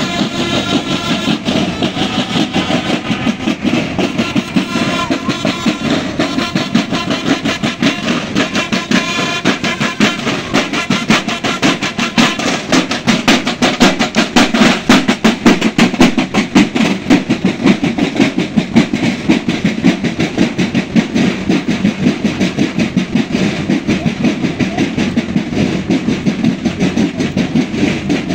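Naval marching band: snare and bass drums beat a rapid, steady marching cadence. For about the first nine seconds the band also plays a tune of held notes, then the drums carry on alone.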